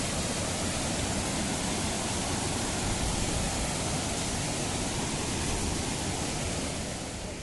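Steady rush of stream water, an even hiss with no pauses that eases slightly near the end.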